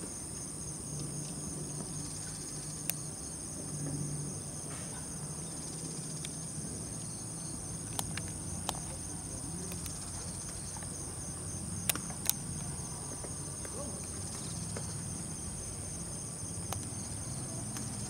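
Insects chirring in a steady, high-pitched chorus with a fast, even pulse running through it. A few sharp clicks break in, two of them close together about twelve seconds in.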